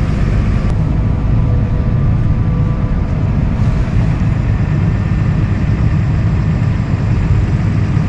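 Case IH tractor's diesel engine running steadily, heard from inside the cab, a constant low drone with a faint steady whine over it.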